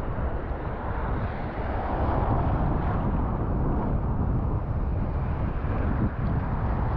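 Wind buffeting the microphone, a steady low rumble, over waves washing and breaking in shallow sea water.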